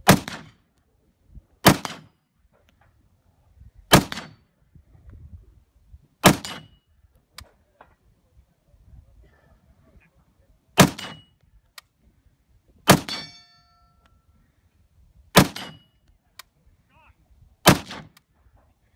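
Eight single rifle shots from a Kalashnikov-pattern rifle, mostly about two seconds apart with one longer pause midway, each with a short echo. Several are followed by the brief ring of a struck steel target, clearest on the shot about two-thirds of the way through.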